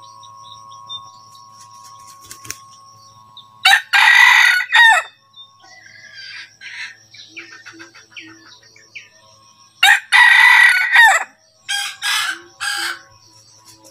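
Red junglefowl rooster crowing: two short crows about six seconds apart, followed by two briefer calls near the end.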